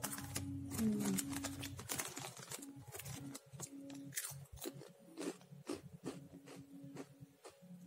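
Crunchy Takatak snack being chewed close to the microphone: a steady run of crisp crunches.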